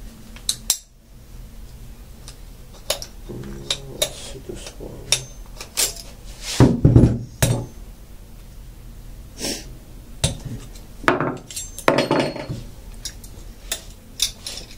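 Metal parts of a Hilti powder-actuated nail gun clicking and clinking as the piston and barrel are handled and fitted back into the tool. There are irregular sharp clicks, with a few heavier knocks and rubs, the loudest a little before halfway.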